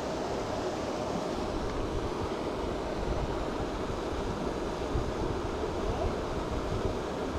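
Steady rushing noise with a fluttering low rumble: wind buffeting the microphone.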